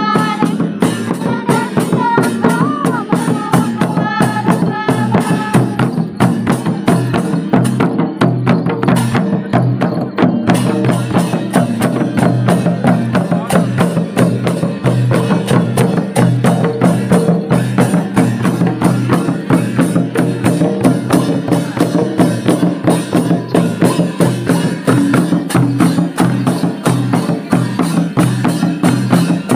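Several Santal tumdak' (mandar) barrel drums beaten by hand together in a rapid, steady folk rhythm. A voice sings over the drumming in the first few seconds.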